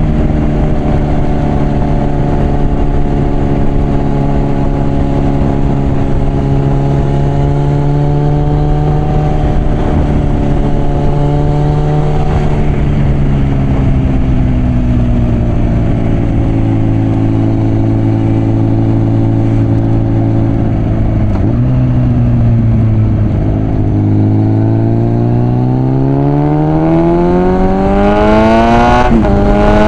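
Suzuki GSF650 Bandit inline-four motorcycle engine running through a Mivv aftermarket exhaust. It holds nearly steady revs for most of the time, and the pitch sags gently after about twenty seconds. Near the end the revs climb steeply, break briefly and climb again.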